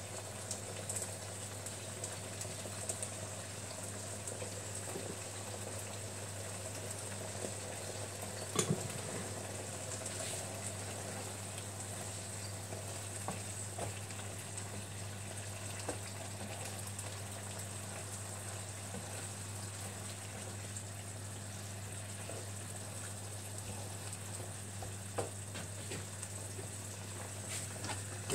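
Green beans in tomato sauce sizzling steadily in a frying pan over a gas flame, with a few light knocks of a wooden spoon stirring them. A steady low hum runs underneath.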